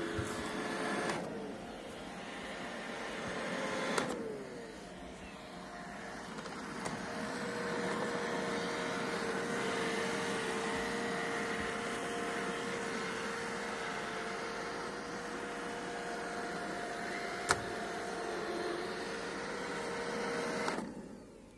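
iRobot Roomba e5 robot vacuum running with a steady motor hum, with a sharp click about four seconds in and another past the middle. It stops shortly before the end.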